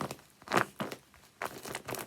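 Homemade paper squishy being squeezed and released, its paper crinkling in short bursts. The loudest comes about half a second in, and quicker crinkles follow near the end.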